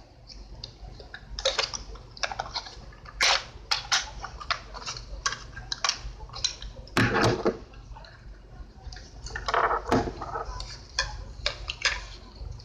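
Handling noise from a small plastic folding pocket drone: clicks and knocks as its arms are folded and it is turned in the hands and slipped into a mesh pouch. The loudest knocks come about three, seven and ten seconds in.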